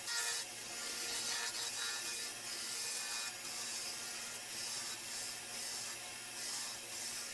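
Wood lathe spinning a glued-up wooden blank while a gouge rough-turns it down to a cylinder: a steady hissing cut that swells and eases as the gouge is passed along the blank, over a faint low hum.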